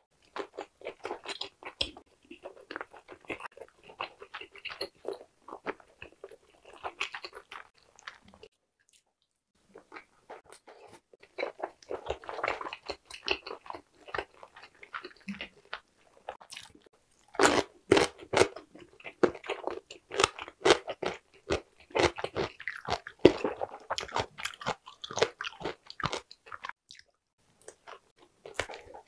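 Chewing and biting of stir-fried Korean blood sausage (sundae): runs of quick, close chewing sounds, a short pause about a third of the way in, and louder, crunchier bites in the second half.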